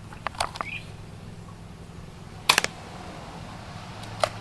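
Airsoft gun firing: a quick run of three sharp cracks about two and a half seconds in, and a single crack near the end, with a few fainter clicks in the first second.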